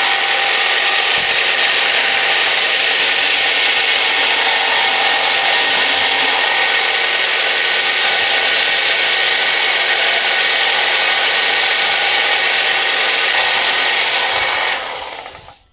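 Bench belt sander running, with the sawn end of a PVC pipe held against the abrasive belt to sand it flat and smooth. Near the end the machine is switched off and the belt runs down.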